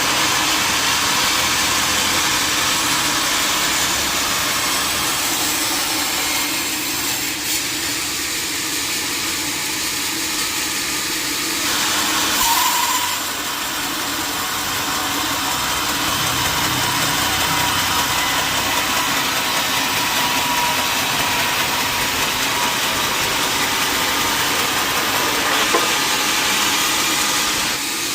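Sawmill machinery running, a loud even mechanical noise with a brief louder surge about twelve seconds in.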